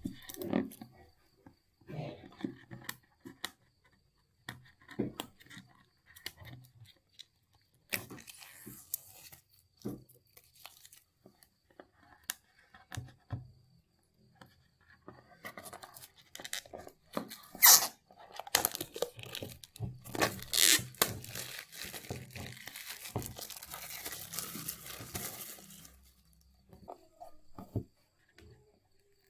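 Packaging of a smartphone box being opened by hand: scattered rustles and clicks, a sharp snap, then several seconds of plastic wrap or a seal tearing and crinkling, about two-thirds of the way through.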